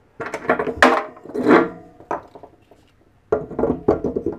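Plastic spool of flux-cored welding wire knocking and rattling against the spool holder of a Clarke 105EN MIG welder as it is fitted on. There is a run of sharp clattering knocks for about two seconds, then another flurry near the end.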